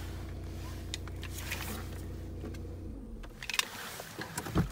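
Volkswagen 2.0 TDI four-cylinder diesel engine idling with a steady low hum, then switching off about three seconds in. A few clicks and a knock follow near the end.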